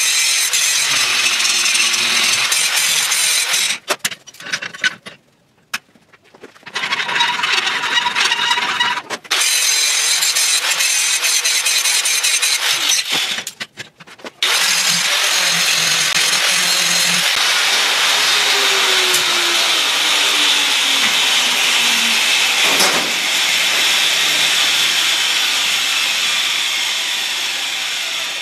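Angle grinder grinding a bevel into the edge of a 3/8-inch steel plate, a steady loud grinding hiss. It stops twice: for about two seconds around five seconds in, and briefly around fourteen seconds in.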